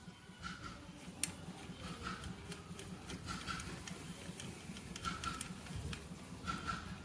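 Faint scattered clicks and ticks, with one sharper click about a second in, over a low steady hum.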